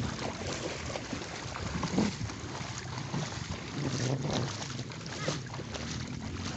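Steady beach wind and surf noise, with wind rumbling on the microphone.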